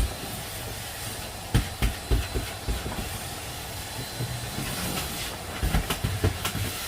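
Wind blowing across the microphone: a steady rushing rumble with sudden gusts buffeting the mic about a second and a half in and again near the end.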